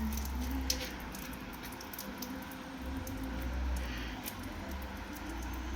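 Quiet background between words: a low rumble that swells and fades a few times, with scattered faint ticks.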